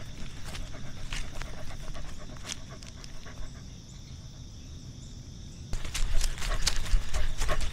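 Dog panting close to the microphone in quick noisy breaths over a low rumble. It eases off about four seconds in and comes back louder about six seconds in.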